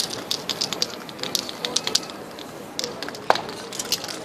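Aerosol spray-paint cans in use: a run of short, sharp spray bursts, with one louder knock a little past three seconds in.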